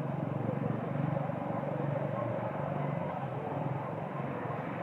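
A steady low engine hum with a noisy background, like a motor vehicle running nearby.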